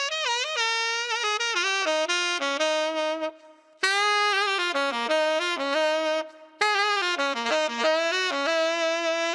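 Tenor saxophone played through a Sugal KW III 3D-printed metal mouthpiece: a fast jazz line of running and bending notes, broken twice by short pauses for breath.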